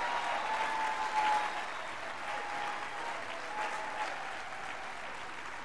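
Conference audience applauding, a steady clapping that slowly fades away.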